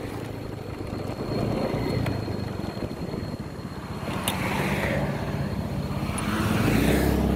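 Car engines running on a road: a low, steady engine hum that grows louder near the end, with some passing noise in between.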